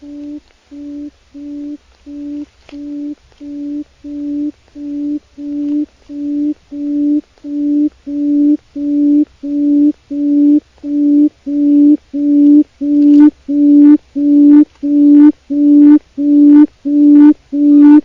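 Quail call: a low hooting note repeated evenly, almost twice a second, growing steadily louder, with each note taking on a brighter edge from about two-thirds of the way through.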